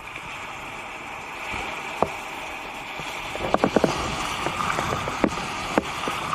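Small surf waves washing in over shallow water, a steady hiss of foam, with scattered sharp clicks and a quick run of them about three and a half seconds in.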